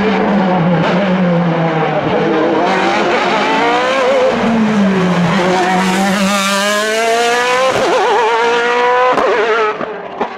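Sport-prototype race car engine at high revs, its pitch climbing hard through the gears with sharp drops at each upshift. About four seconds in the revs fall and then build again.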